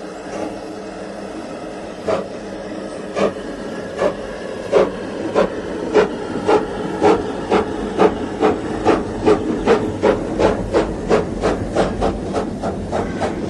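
Steam locomotive pulling away under a steady hiss of steam, its exhaust chuffs starting about two seconds in and quickening from about one a second to nearly three a second as the train gathers speed.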